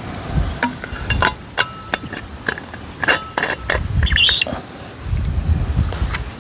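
Metal vacuum flask being handled: a series of clicks and light metallic clinks as its cap is screwed on and it is set down, with a brief high squeak about four seconds in.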